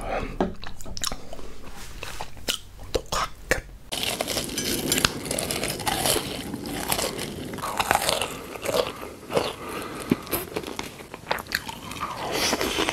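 Eating sounds of a person biting and chewing, crunchy: separate sharp clicks at first, then denser crunching from about four seconds in.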